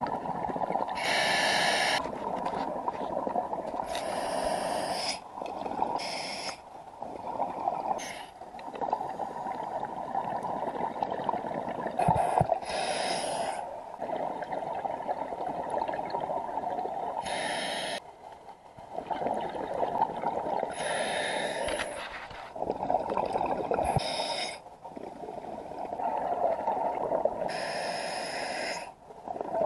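Scuba diver breathing through a regulator underwater: a short hissing inhale every few seconds, with a steady rush and gurgle of exhaled bubbles between.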